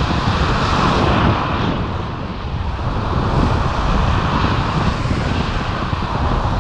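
Airflow buffeting a pole-mounted action camera's microphone during tandem paraglider flight: a loud, steady rumbling rush of wind noise that eases slightly about two seconds in.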